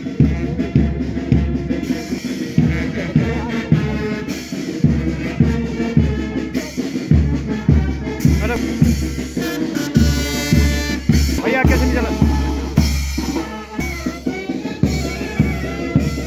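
Brass band playing a march, with trumpets and trombones over a steady bass drum beat about twice a second, setting the pace for marching troops.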